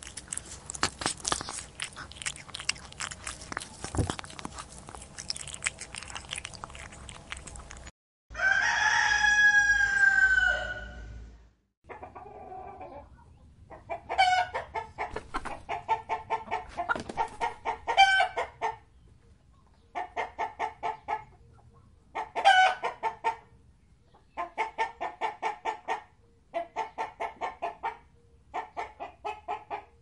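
For the first eight seconds, a cat licks and chews, making rapid clicking sounds. Then a rooster crows once, loudly. It follows with bursts of rapid clucking, each about a second long, repeated with short gaps.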